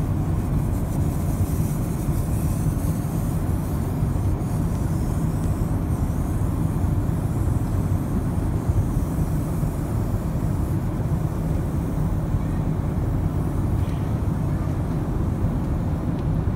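Steady cabin noise of a jet airliner in flight: an even, low rumble of engine and airflow noise that does not change.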